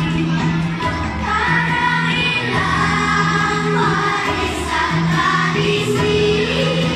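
A group of young children singing together over a recorded backing track. A steady low bass line runs under the voices.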